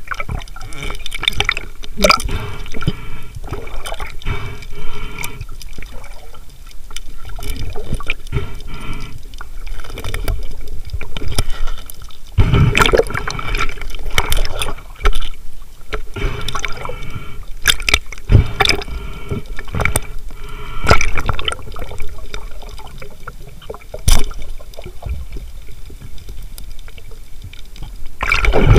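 Underwater sound through a submerged camera's housing: water moving and bubbling, with frequent sharp clicks and knocks throughout.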